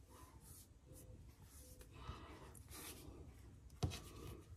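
Faint rubbing and brushing of wet fingertips along the edges of a wonton wrapper on a countertop, with a single sharp tap a little under four seconds in.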